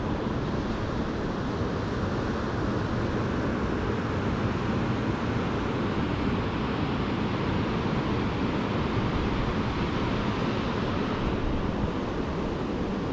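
Ocean surf breaking and washing up the beach in a steady rush, with wind noise on the microphone.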